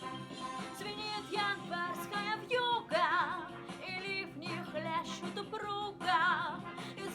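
Woman singing over an instrumental backing track, in long held notes with wide vibrato and no recognisable words, like a vocalise refrain; the strongest held notes come about three seconds and six seconds in.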